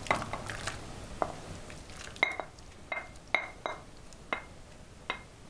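Wooden spatula scraping diced mushrooms out of a dark glass bowl into a pot of soup, then knocking against the bowl about six times in the second half, each knock with a short glassy ring.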